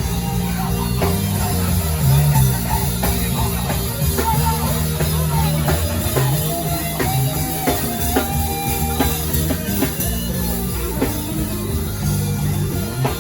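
Live worship band playing an instrumental passage without singing: drum kit, keyboard and guitars, with a steady beat and a sustained melody line that bends between held notes.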